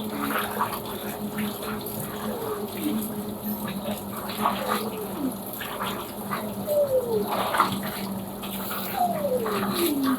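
Panasonic top-load washing machine on its blanket cycle, agitating a load in water with sloshing. A motor whine falls in pitch after each stroke, about every two seconds, over a steady hum.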